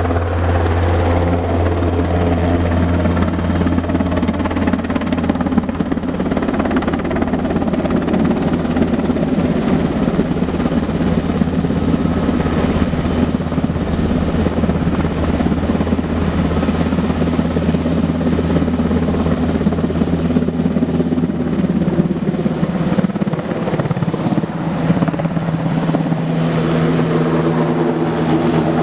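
NH90 Sea Lion helicopter flying close by: a loud, steady sound of main rotor and engines that continues without a break.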